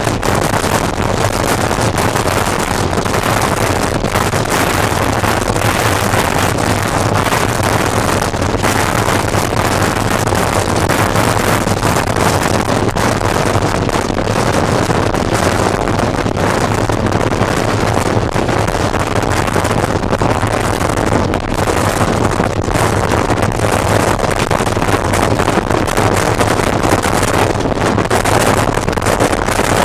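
Express passenger train running at about 105 km/h, heard from an open window: wind rushing over the microphone with the steady rumble of the coach's wheels on the rails. The noise is loud and even.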